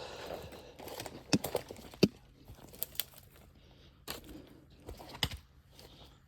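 Footsteps crunching through dry leaf litter and brush, with irregular sharp snaps and crackles, the loudest about two seconds in and again about five seconds in.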